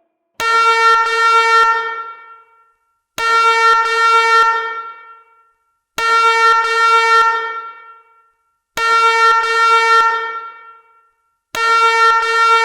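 Firecom 8500 fire alarm system sounding five bell-like chimes about 2.8 seconds apart, each struck sharply and ringing out as it fades. This is the chime half of the alarm's repeating five-chime, five-whoop evacuation signal.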